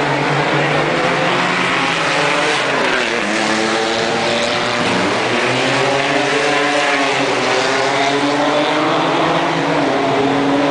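Racing car engines running hard at full revs, the pitch falling and rising over and over as the cars brake, change gear and accelerate around the circuit.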